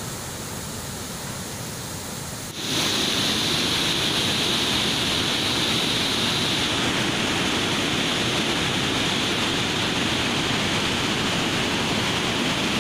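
Floodwater rushing through a dam's open spillway gates, a steady rush of falling water. About two and a half seconds in it turns suddenly louder and brighter, as it changes to the water pouring straight through a gate.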